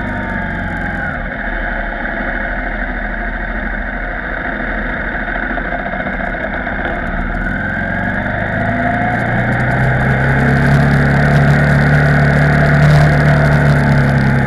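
KTM 990 Supermoto R's V-twin engine heard from the bike itself, revs falling as it slows into a hairpin, then rising and getting louder as it accelerates out, about two thirds of the way in.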